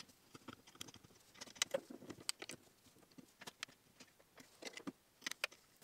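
Faint, scattered clicks and scrapes of a hex key working the bolts of a 3D printer's Y-axis timing-belt tensioner, metal tool on metal fittings and aluminium frame, while the loose belt is being retensioned.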